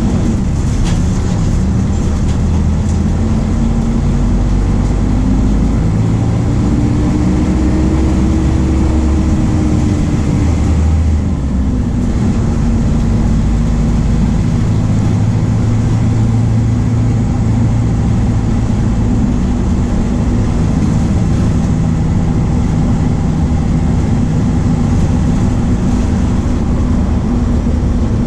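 MAN D0834 four-cylinder turbodiesel of a VW 17.230 OD bus running under way, its pitch climbing over several seconds, dropping back about eleven seconds in, then holding fairly steady.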